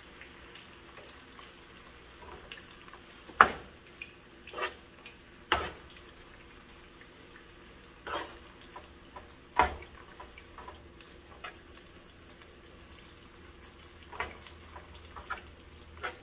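A spoon knocking and scraping against a nonstick skillet as fried rice is stirred, in irregular sharp taps, the loudest about three and a half and nine and a half seconds in, over a faint steady sizzle of frying.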